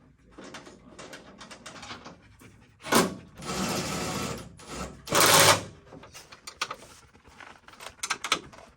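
Fender flare bolts being fastened into stainless rivnuts: a run of small clicks and knocks, with two louder, longer bursts of noise about three and five seconds in.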